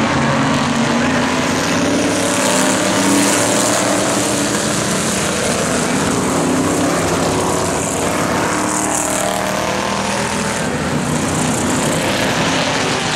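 Engines of several vintage winged open-wheel race cars running on the oval at once, their pitch rising and falling as the cars pass.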